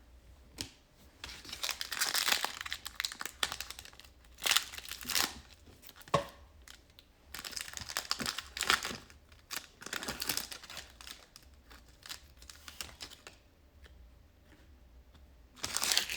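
Plastic foil wrapper of a Prizm basketball trading-card pack being torn open and crinkled, in several bursts of rustling with quieter pauses between.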